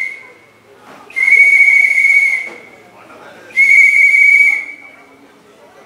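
A whistle blown in repeated long blasts of one steady, shrill pitch: the tail of one blast at the start, then two full blasts about two and a half seconds apart.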